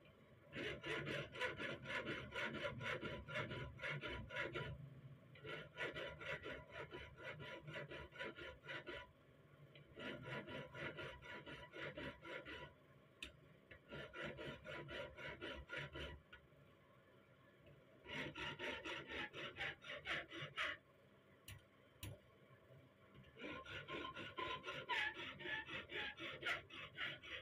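Hand file rasping back and forth on a small steel rifle part clamped in a bench vise, in six bouts of quick strokes with short pauses between. The part is being filed down so the rifle's hammer will catch and lock.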